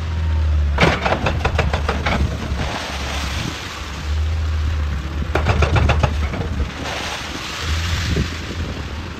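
Hydraulic excavator's diesel engine running under load, with two bursts of rapid knocking, about six strikes a second, as rock is broken and worked.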